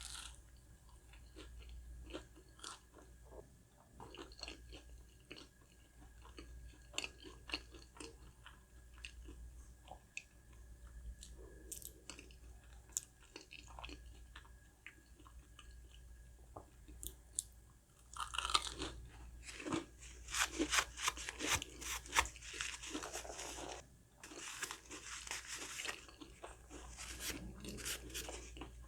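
Close-miked chewing of crispy breaded, fried food, with soft small clicks at first. About two-thirds of the way in comes a loud run of dense crunching lasting roughly nine seconds, as a fresh crisp bite is chewed.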